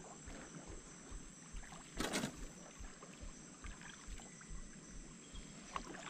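Faint water lapping against the hull of a small boat, with soft irregular knocks and one brief louder noise about two seconds in.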